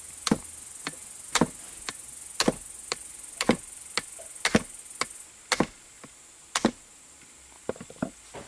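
A small hammer tapping on the shaft end of a Briggs & Stratton engine's electric starter motor, working on its plastic starter gear. Sharp metallic knocks come about once or twice a second, some in quick pairs, with a faster few near the end.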